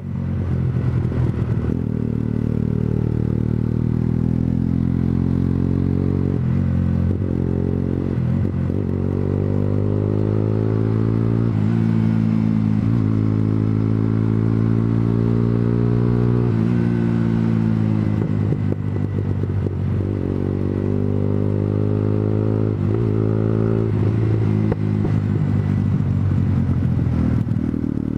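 Honda CBR125R sport motorcycle's small single-cylinder four-stroke engine under way, heard from the rider's own bike. Its pitch keeps rising and then dropping sharply as it pulls through the gears and shifts, several times over.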